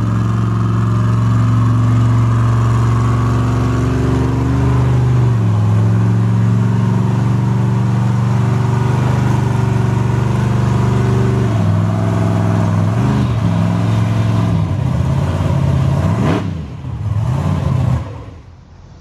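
Grave Digger monster truck's supercharged V8 running at low revs, rising and falling with short throttle blips as it creeps up the ramps into the trailer. The sound stops abruptly near the end.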